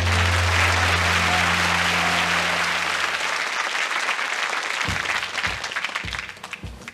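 Studio audience applauding at the end of a song, with the band's last low note held under the clapping for the first three seconds; the applause thins out toward the end.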